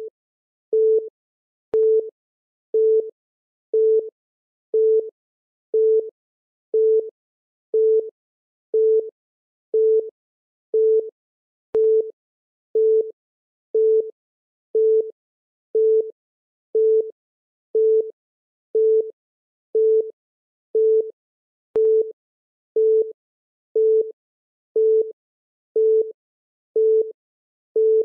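Countdown timer beeping once a second: a short, plain electronic beep at the same low pitch each time, keeping time with the seconds ticking down.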